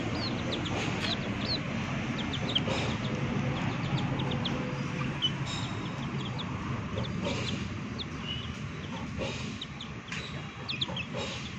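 Chicks peeping: short, high, downward-sliding peeps in small scattered runs, over a steady low background rumble.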